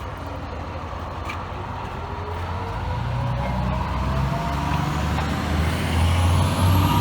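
Fire truck's engine rumbling as its siren starts up, one slow continuous rise in pitch over several seconds, growing louder as the truck approaches.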